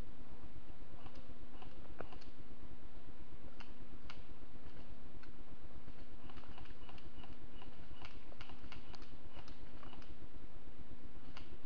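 Scattered light clicks and crackles, coming thickest in the middle of the stretch, over a steady low rumble and a faint steady hum.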